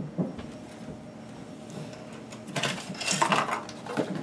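Handling clatter of a Yuneec Typhoon G quadcopter being turned over and set down on a table: a click at the start, then a run of quick clicks and knocks in the second half.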